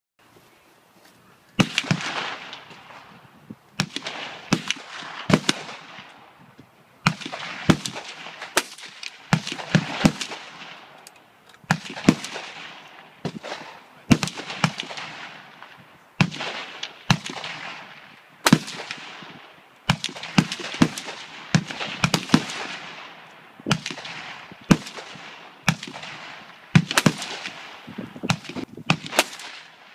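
Gunfire on an outdoor shooting range: sharp reports every second or two, sometimes closer together, each with a long echoing tail.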